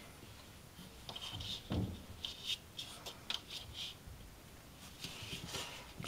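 Faint rustling and rubbing of a hand on a cat's fur inside a fridge: a few short scratchy strokes, with a soft bump about two seconds in.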